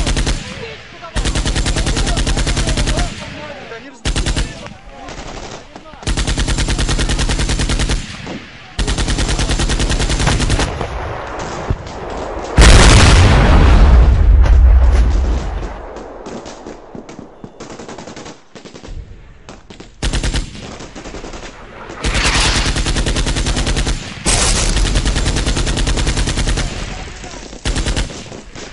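Automatic gunfire at night: repeated long bursts of rapid fire, each one to three seconds, with short gaps between. About halfway through comes a much louder, deeper stretch of about three seconds.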